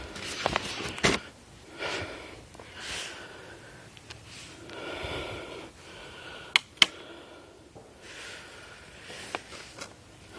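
A man breathing heavily, in and out every second or two, winded from carrying a bag. A little past the middle come two sharp cracks in quick succession.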